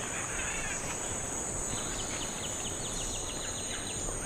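Forest ambience: a steady high-pitched insect drone with bird calls, including a quick run of about a dozen short falling notes in the second half.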